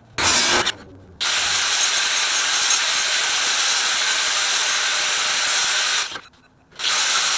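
Steel tube end being ground on a power grinder, a harsh hiss each time the metal is pressed to the abrasive. There are three passes that start and stop abruptly: a short one at the start, a long one of about five seconds, and another near the end.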